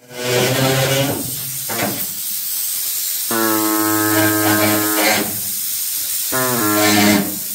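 Electric hacksaw (reciprocating saw) cutting the sheet-steel rear panel of a Chevy panel truck: a harsh hiss of cutting with a loud buzzing drone that cuts in and out in spells of a second or two, as the new saw plays up.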